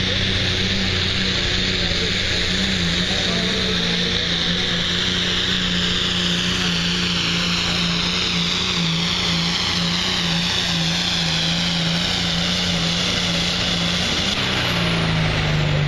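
Diesel pulling tractor's engine running hard under full load as it drags a weight-transfer sled, with a steady low drone and a high whine that slowly falls in pitch. The engine note drops near the end as the tractor comes past.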